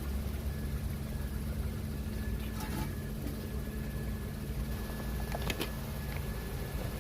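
Steady low mechanical hum, like an engine idling, with a thin high steady tone over it. A few faint clicks of parts being handled come about a third of the way in and again past the middle.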